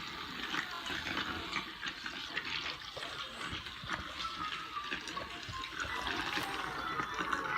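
Tornado maker toy running: a steady rush of swirling water with small crackling splashes.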